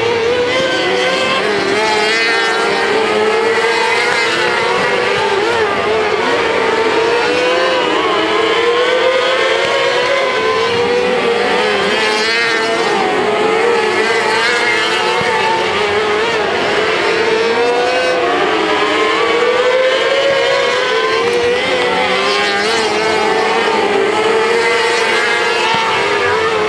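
Several small dirt-track race car engines racing together, their pitch rising and falling again and again as the cars lap the oval.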